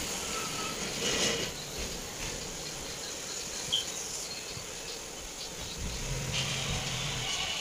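Steady background hum and hiss with no speech, with one short high chirp about halfway through and a low hum swelling near the end.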